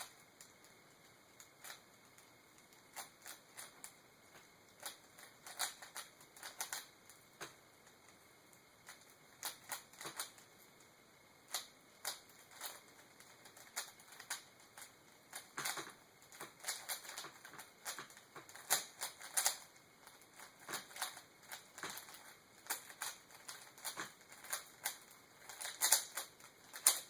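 3x3 Rubik's cube being turned rapidly by hand: irregular flurries of sharp plastic clicks as the layers snap around, with short pauses between bursts.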